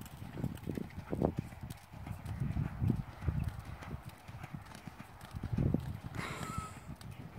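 Hoofbeats of a horse cantering on a sand arena surface, dull low thuds in a running rhythm, with a brief hiss about six seconds in.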